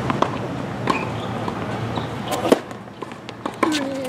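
A tennis ball being bounced on a hard court before a serve, then hit by a racket with a sharp pock about two and a half seconds in, followed by fainter hits and bounces of the rally.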